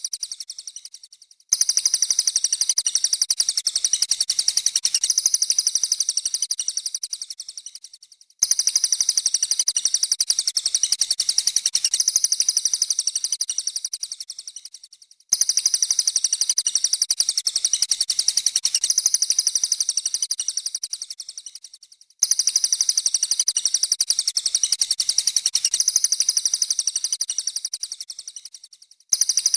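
A mix of songbird chirping and song: murai air, cililin, house sparrow and canary calls layered together. It is loud, dense and very rapid, and high-pitched. The same block of about seven seconds repeats four times, each fading out and then restarting abruptly after a brief gap.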